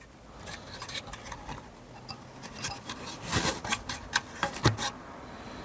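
Irregular clicks, rubbing and scraping of filter material being pushed and squeezed into a 3D-printed plastic fume extractor housing, with a louder scrape a little past halfway and a sharp click near the end.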